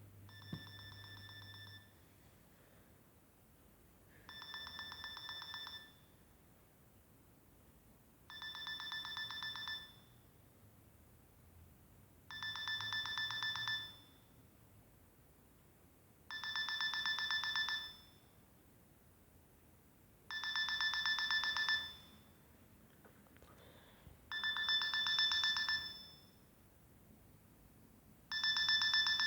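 Nokia 6070 mobile phone ringing through its small loudspeaker: a fast-pulsing trill about a second and a half long, repeated every four seconds, growing louder over the first few rings.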